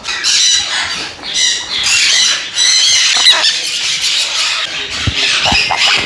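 Parrots squawking: a run of loud, harsh, repeated calls.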